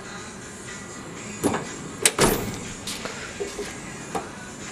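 Drawers of a Husky 41-inch metal tool chest sliding on their runners and knocking shut or open, a few separate knocks with the loudest about two seconds in.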